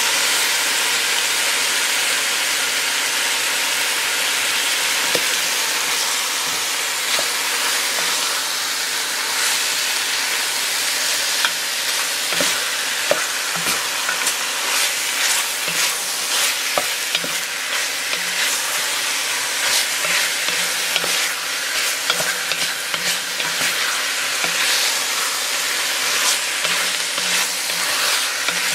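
Cubed meat sizzling as it browns in a hot enamelled pot, stirred with a wooden spoon. The steady sizzle runs under many small scrapes and knocks of the spoon against the pot.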